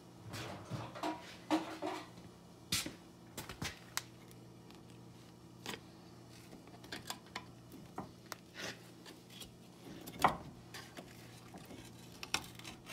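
A screwdriver prying the brake pads back in a 2003 Chevy Tahoe's front brake caliper: scattered metal clicks, taps and scrapes, the sharpest about a second and a half in, near three seconds and about ten seconds in.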